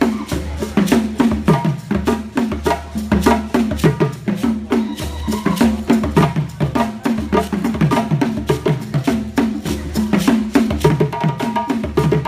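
Music with a steady beat, carried by a repeating bass line and sharp clicking percussion.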